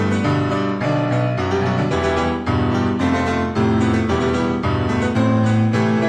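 Background piano music, a steady run of struck notes.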